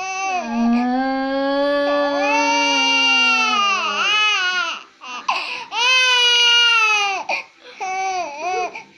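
Three drawn-out wailing cries: a long one of about four seconds that falls away at the end, a second of about two seconds, and a shorter, wavering one near the end.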